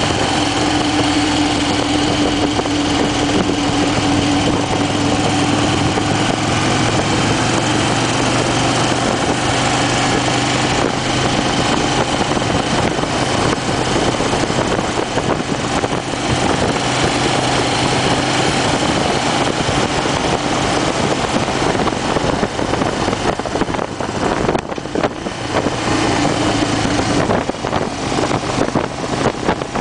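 2008 Harley-Davidson Fat Bob's Twin Cam 96 V-twin running steadily at road speed, mixed with a heavy rush of riding wind.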